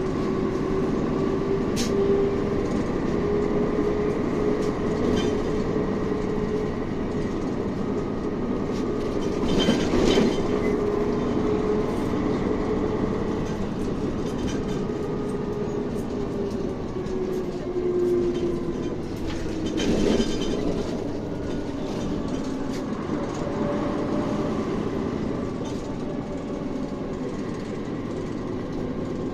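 Inside a city bus on the move: a steady engine and road rumble with a drivetrain whine that rises and falls with speed, plus rattling. There are two louder clattering jolts, about ten and twenty seconds in.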